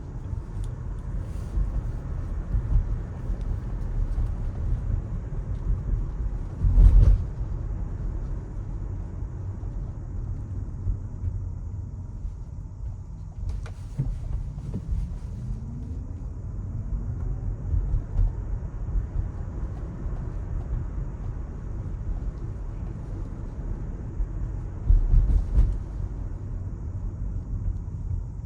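Low, steady road and tyre rumble of a Tesla driving on wet city streets, with a faint rising whine a couple of times. Two louder low thumps come about a quarter of the way in and again near the end.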